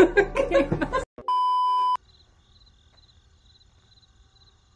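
A woman's voice breaks off about a second in. A single steady electronic beep follows, lasting under a second and starting and stopping abruptly, and then near silence.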